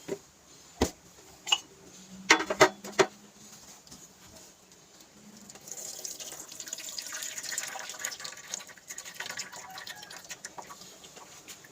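A few sharp knocks, then water running or pouring for about five seconds, with kitchen clatter.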